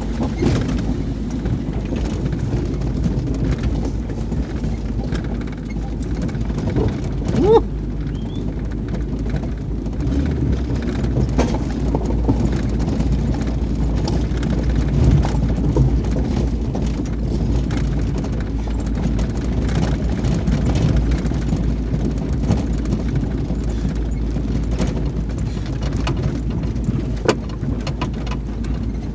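Pickup truck rolling slowly over gravel and concrete grid pavers, heard from inside the cab: a steady low rumble of engine and tyres with frequent crunching and knocking from the rough ground. A brief rising squeak sounds about seven seconds in.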